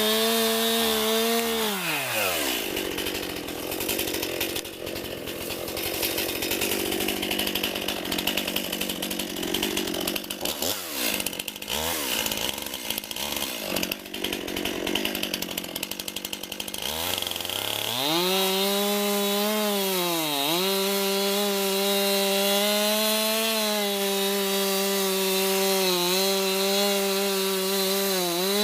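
Two-stroke chainsaw cutting wood from a downed tree. The engine pitch drops as the chain bites into the wood about two seconds in, and it labours in the cut for about fifteen seconds. It then revs back up to steady high-speed running as it comes free, dipping briefly twice.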